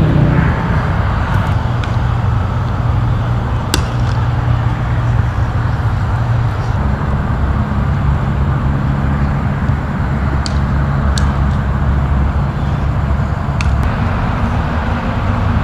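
Steady low, engine-like rumble, with sharp cracks of a cricket bat striking the ball: one about four seconds in and three more in the last third.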